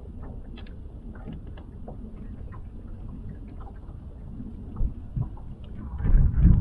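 Wind rumbling on the microphone, with scattered light clicks and knocks throughout and a few louder low thumps near the end.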